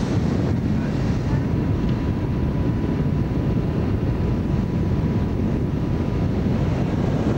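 Motorboat engine running steadily under way, mixed with wind on the microphone.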